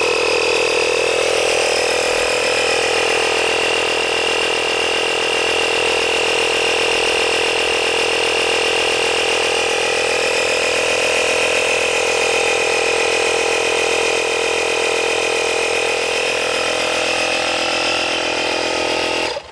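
The small 12-volt electric air compressor from a 2013 Chevrolet Malibu's tire inflator kit runs steadily, pumping air into a low tire toward 35 psi. It is switched off abruptly near the end so the true tire pressure can be read.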